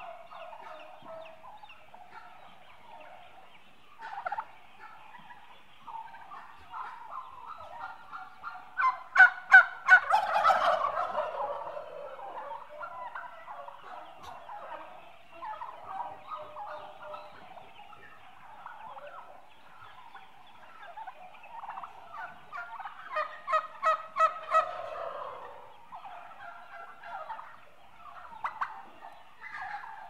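A flock of eight-month-old turkeys, mostly hens, calling and chattering continuously, with two louder bursts of rapid rattling calls, about nine seconds in and again around twenty-three seconds in.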